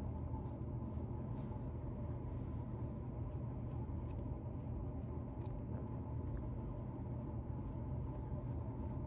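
Scratching in a beard to loosen dandruff: faint, irregular scratchy crackles over a steady low hum.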